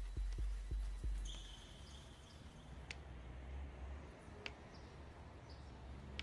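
Quiet outdoor ambience with a low rumble, a few dull thumps in the first second, a short steady high-pitched chirp about a second in, and a few faint sharp ticks.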